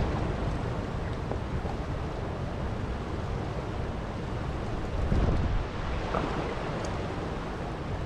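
Steady wind buffeting the microphone over the rush of choppy lake water lapping against a canoe, a little louder about five seconds in.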